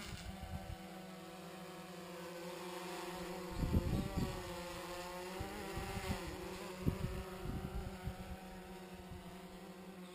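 DJI Phantom 3 Advanced quadcopter's motors and propellers buzzing as it hovers and manoeuvres, the pitch shifting slightly as it moves. Low rumbling bursts hit the microphone, the strongest about four seconds in.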